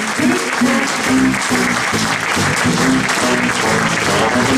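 Audience applauding over music, a melody of short held notes.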